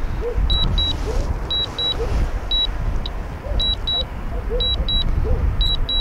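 DJI drone app on the remote controller sounding its warning alarm, short high beeps mostly in pairs about once a second, as the Mavic Air's link drops and the drone returns home on its own. A low rumbling noise runs underneath and is louder than the beeps.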